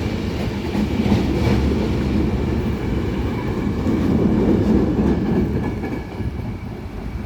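Passenger train hauled by Škoda electric locomotive 44 204 departing: the carriages and wheels rumble steadily along the track, getting quieter in the last second or so.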